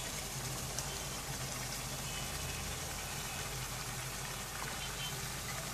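Raw meat pieces sizzling gently in oil and spice paste in a pot on medium heat: a steady soft hiss with a low hum underneath.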